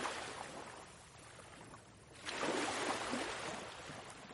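Ocean waves: the wash of one wave fades away, then another surges in about two seconds in and slowly recedes.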